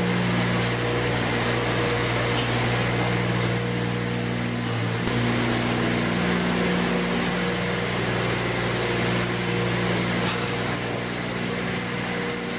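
Motor of a FarmClean cubicle-cleaning cart running steadily, a hum with a hiss over it, as its rotating brush works the cow stalls. The hum breaks off briefly about five seconds in.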